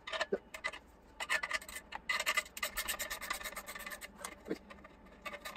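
Ratchet clicking in quick runs, with some metal rubbing, as a Torx tool loosens the exhaust clamp bolt on a motorcycle's resonator; the clicks are densest from about a second in until about four seconds in.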